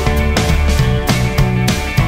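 Upbeat rock background music with a steady drum beat.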